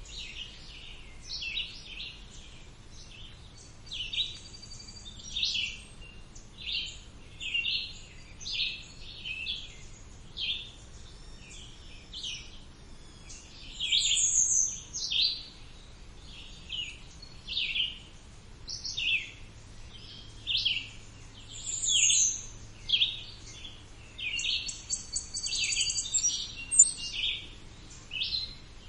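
Several songbirds singing in a summer chorus: short high-pitched phrases about once a second, some of them quick notes sliding down from very high.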